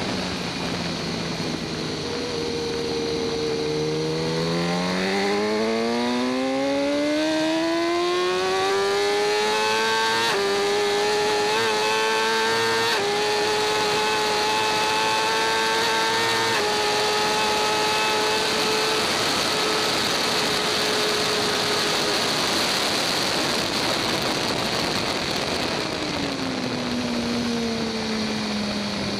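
2014 BMW S1000RR's inline-four engine heard onboard. From about four seconds in it climbs steadily in pitch as the bike accelerates, with upshifts about ten, thirteen and sixteen seconds in. Its note then sinks under a steady rushing noise at speed, and near the end it falls in pitch again as the bike slows.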